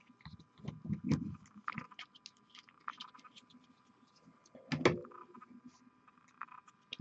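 Scattered light clicks and soft knocks from handling a paint dropper bottle and painting tools on a desk, with one louder knock a little under five seconds in.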